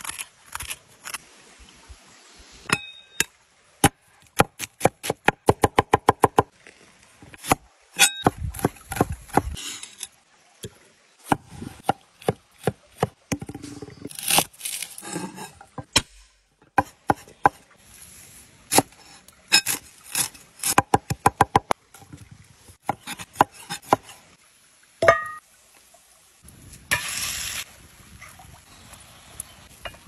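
Cooking prep sounds: a spoon scraping out a raw potato, then a knife chopping on a wooden board in runs of quick, regular strokes, and near the end minced meat sizzling in a cast-iron skillet as a wooden spoon stirs it.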